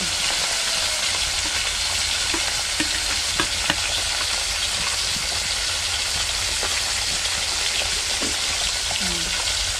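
Cooking at a wood-fired stove: a steady sizzling hiss from the fire and hot pots while a ladle stirs greens into a pot of fish soup, with a few light knocks of the ladle on the pot.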